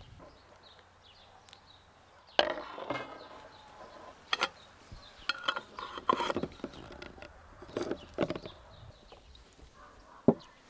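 Filled glass jars being handled: metal screw lids clicking on and jars knocking down on wood and a ceramic bowl. The sharp clinks and knocks begin about two seconds in, and the sharpest comes near the end.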